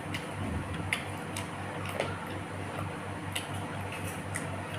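Eating sounds from someone chewing with the mouth open: scattered sharp clicks and smacks, about six in under five seconds, over a steady low hum.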